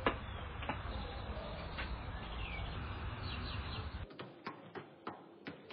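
Outdoor background with a steady low rumble, birds chirping and a few sharp knocks. About four seconds in, it drops to a quieter room where a football is lightly tapped with the foot about three times a second.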